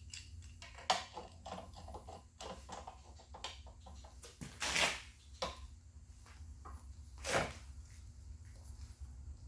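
Short, irregular metallic clicks and clinks from a hand tool working a bolt on a mini bike's front fork clamp as it is snugged up. Two louder swishes come about halfway through and about three-quarters through.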